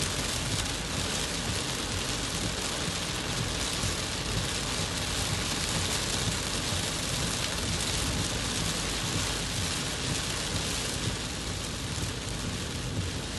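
Torrential rain pelting a moving car's roof and windshield, heard from inside the cabin: a steady, even rush with a low rumble beneath it.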